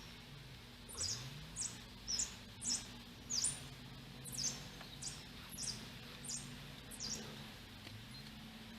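A small bird chirping: about ten short, high chirps, each a quick sweep in pitch, repeated every half-second to second, over a faint low hum.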